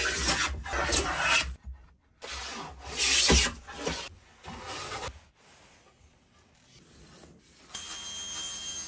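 Hand plane shaving a wooden board clamped in a bench vise: several long strokes in the first four seconds. Near the end a power saw's motor starts and runs steadily.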